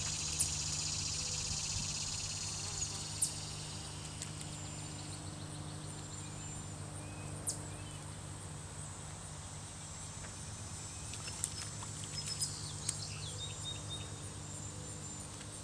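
Outdoor pond-side ambience: a high insect buzz that fades out about four seconds in, a steady low hum underneath, a few short bird chirps and several sharp ticks.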